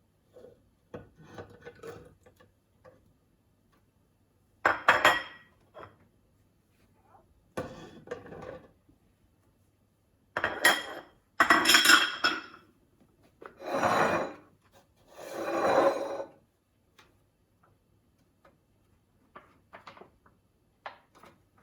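Berries being tipped out into a container in several short bursts, with dishes and utensils handled in between.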